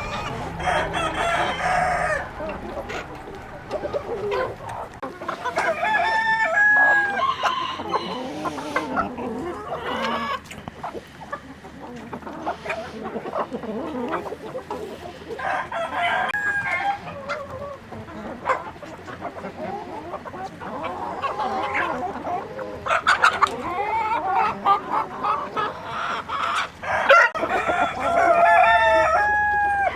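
A flock of chickens clucking, with roosters crowing several times.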